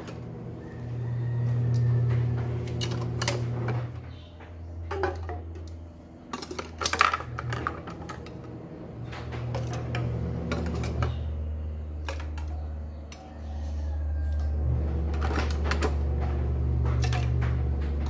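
Irregular clicking and rattling, like hard plastic feeding-bottle parts knocking against the pot in boiling water, comes in clusters over a low, steady rumble.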